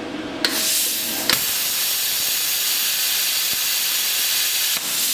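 Plasma cutter torch hissing with a steady rush of compressed air, switched on with a click about half a second in and growing louder with a second click about a second later, showing the air and cutter are working.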